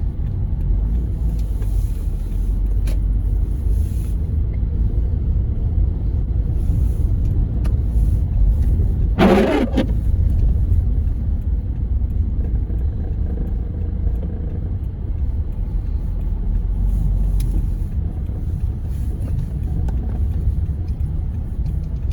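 Steady low rumble of a car moving slowly, its engine and tyres heard from inside the cabin. A short falling pitched sound comes about nine seconds in.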